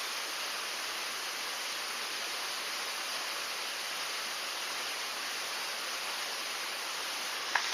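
Steady rushing of a creek's running water, an even hiss with no change. A few short clicks near the end.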